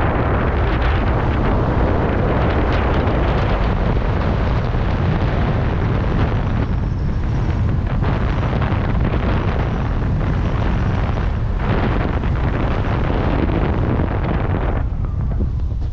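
Wind buffeting the helmet camera's microphone during a parachute canopy descent: a steady, loud rush heavy in the low end. The rush thins out about fifteen seconds in as the jumper nears the ground.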